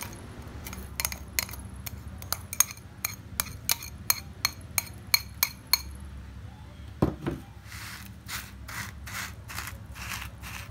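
Metal spoon clinking repeatedly against a glass bowl, about three sharp clinks a second, as buttery biscuit crumbs are scraped out into a plastic container. About seven seconds in comes a dull thump, followed by softer strokes of the spoon spreading and pressing the crumbs flat.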